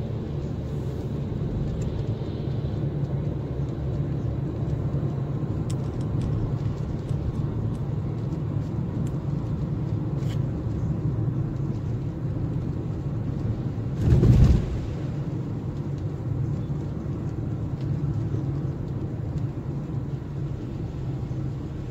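Road noise inside a moving car on wet pavement: a steady low rumble of the engine and tyres. About two-thirds of the way through there is a brief, louder burst of noise lasting under a second.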